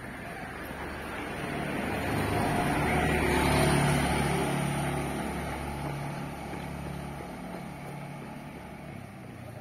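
A car and a motor scooter driving past close by, the engine and tyre noise swelling to a peak about four seconds in and then fading away.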